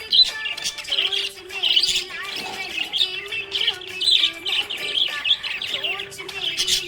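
Budgies chattering happily: a continuous stream of quick chirps and warbles with no pauses.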